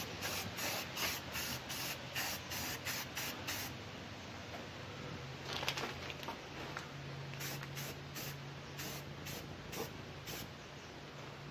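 Aerosol spray paint can spraying enamel in short, quick bursts for the first few seconds, then in fewer, longer passes.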